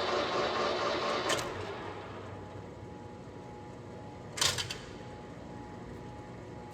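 Clausing 15-inch by 50-inch engine lathe running, then winding down after about a second and a half to a faint hum. A sharp clunk comes about four seconds in.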